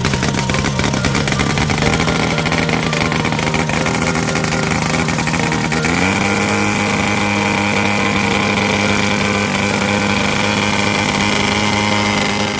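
Engine of a homemade light aircraft running steadily, stepping up to a higher speed about halfway through and holding there.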